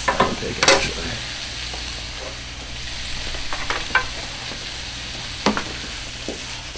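Frozen mixed vegetables sizzling in a small skillet, with a utensil clacking and scraping against the pan as they are stirred. A few sharp clacks come near the start, again around the middle, and once near the end.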